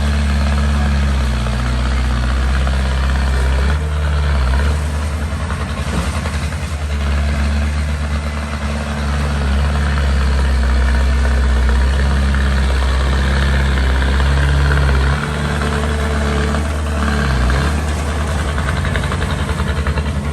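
Small bulldozer's diesel engine running steadily as it works, its pitch and level shifting a few times as the load changes.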